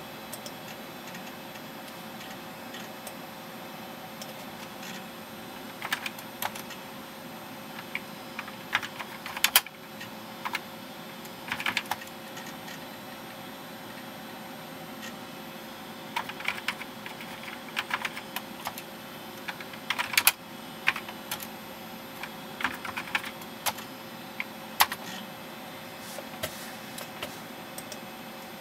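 Computer keyboard typed on in short bursts of keystrokes, entering commands into a shell, over a steady electrical hum. The typing starts about six seconds in and comes in clusters until shortly before the end.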